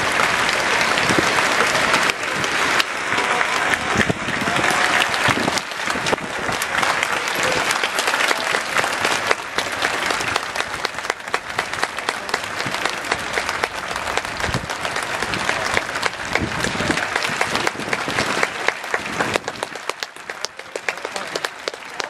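A large crowd applauding steadily, with voices mixed in. The applause thins out near the end.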